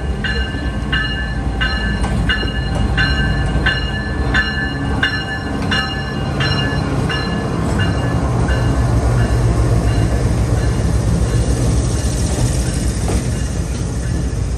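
Freight train wagons rolling past on the rails, with a steady low rumble. A high ringing squeal repeats roughly every 0.6 seconds and fades out about halfway through. The rumble grows louder in the second half, with a rising hiss near the end.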